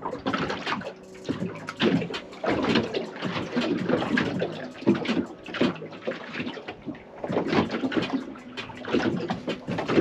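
Water lapping and slapping against the hull of a small boat at sea, an irregular run of small splashes.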